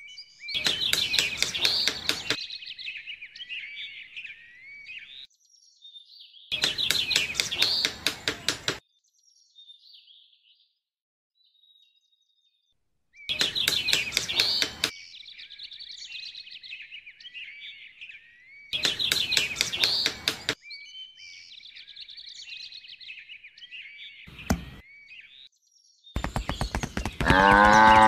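Four bursts of rapid tapping, each about two seconds long, with birds chirping between them. Near the end a cow moos.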